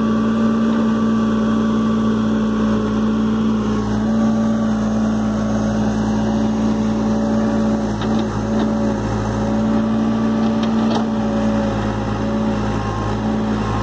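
New Holland backhoe loader's diesel engine running steadily under load while the backhoe arm digs, a constant hum whose higher whine wavers slightly in pitch. A single sharp click about eleven seconds in.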